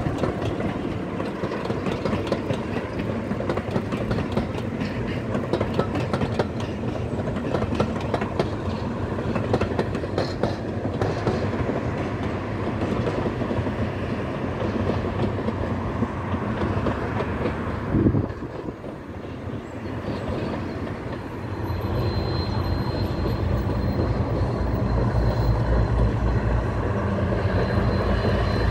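Heritage diesel locomotives hauling passenger coaches: wheels clattering over the rail joints with engine noise for most of the first two-thirds. There is a sharp thump, then from about two-thirds in a diesel engine's heavy low throb grows steadily louder.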